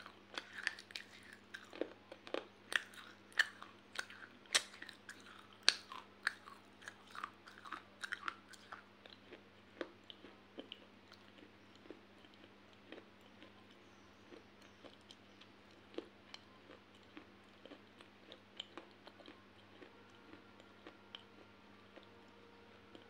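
Close-up chewing of crunchy baked clay pieces. Loud, sharp crunches come thick and fast for the first nine seconds or so, then thin out to softer, sparser crunches as the mouthful is chewed down.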